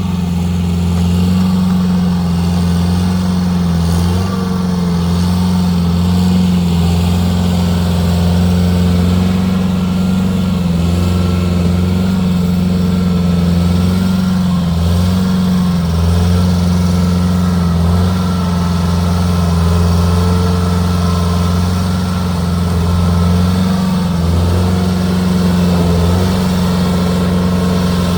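An engine running steadily at a loud level, its low hum wavering and dipping briefly now and then as the load changes.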